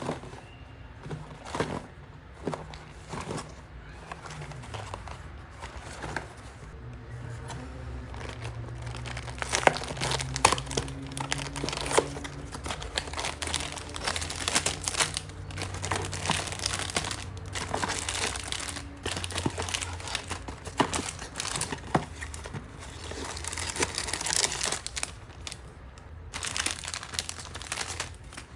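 Plastic LEGO parts bags crinkling and tearing as they are handled and opened, with many sharp small clicks of pieces throughout.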